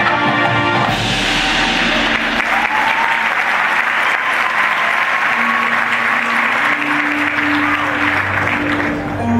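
Stadium crowd applauding and cheering, breaking out about a second in as the band's held chord ends. The band's music comes back in under the applause in the second half and carries on as the applause dies away near the end.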